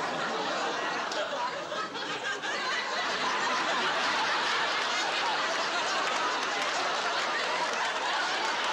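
Studio audience laughing, a crowd of many voices that swells and grows louder about three seconds in, then holds steady.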